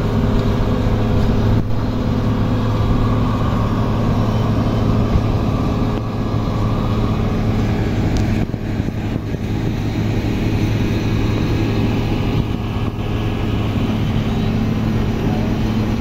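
Asphalt paver's diesel engine running steadily with an even, low hum while laying asphalt.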